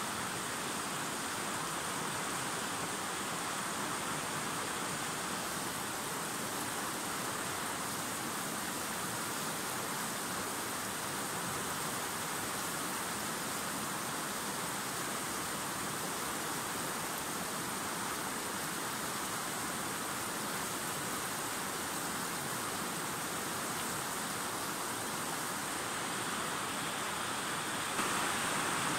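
Fast mountain river rushing over stones and riffles, a steady rush of water, a little louder for a moment near the end.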